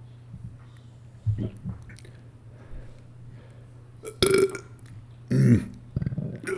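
Two loud burps about a second apart in the second half, the second falling in pitch, after a shorter, quieter low sound about a second in.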